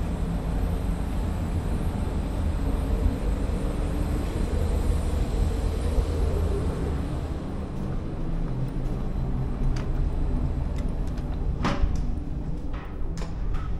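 Steady low rumble on a ship's open deck that eases about two-thirds of the way through, followed by a few sharp clicks and knocks, the loudest about twelve seconds in.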